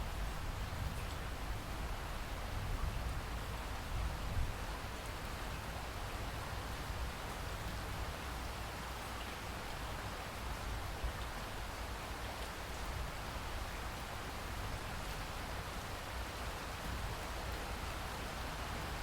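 Steady rain falling: an even, continuous hiss of drops with a low rumble underneath.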